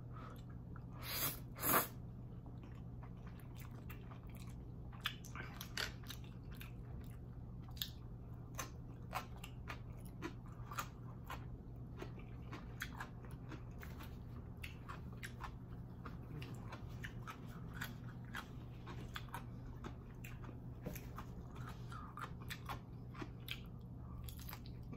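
A person chewing chewy ramen noodles close to the microphone, with many small wet mouth clicks and smacks and two louder mouth sounds about a second in.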